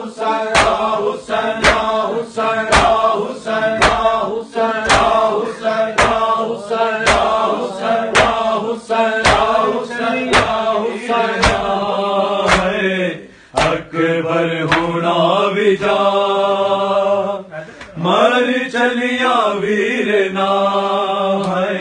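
Men chanting a noha lament while beating their chests in time, the open-hand slaps landing in a steady beat about every half second. About thirteen seconds in the slapping mostly stops and the chant carries on in long drawn-out lines.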